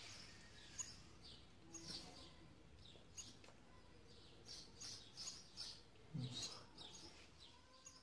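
Faint bird chirping: short high chirps scattered throughout, over quiet room tone, with a brief low sound about six seconds in.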